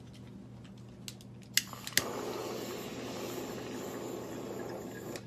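Butane jet torch lighter clicking twice, then its flame hissing steadily while it lights a packed bong bowl; the hiss cuts off near the end.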